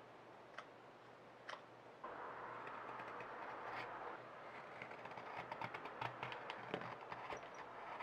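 Carving knife paring dried olivewood on a spoon. First a few separate light knife clicks, then from about two seconds in a steady rasp of short, fine shaving cuts with many small ticks, getting busier toward the end.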